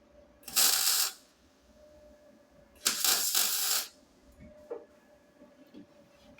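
MIG welder tacking thin 1 mm steel sheet: two short crackling bursts of the arc, about a second in and about three seconds in, the second one longer.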